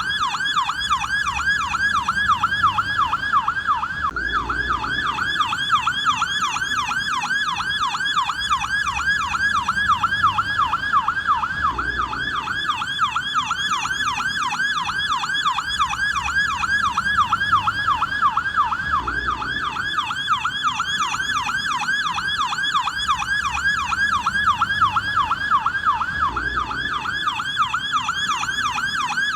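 American police car siren in yelp mode: a fast, continuous up-and-down wail repeating several times a second at an even pitch and level.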